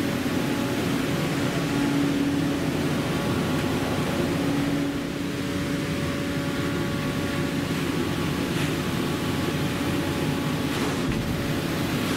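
Ship's engine-room machinery running steadily: a constant mechanical hum with a steady drone under it.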